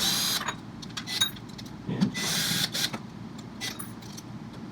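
Power driver with an oval security-bolt bit whirring in short bursts as it backs out the back-panel bolts of a Jura Z6 coffee machine: one burst at the start and another about two seconds in, with small clicks of the bit and bolts in between.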